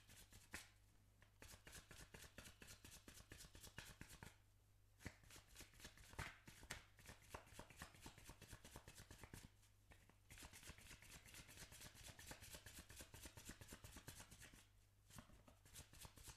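A deck of tarot cards being shuffled by hand, faintly: runs of rapid card flicks broken by four short pauses.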